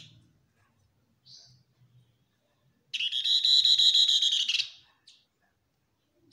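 Pin-striped tit-babbler (tepus lurik) calling: a short high chirp, then a loud rapid trill lasting about a second and a half that dips slightly at its end, then one more short note.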